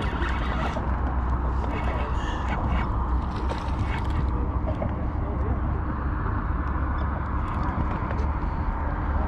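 Wind rushing over the microphone in a steady deep rumble, with a spinning reel being cranked to retrieve fishing line.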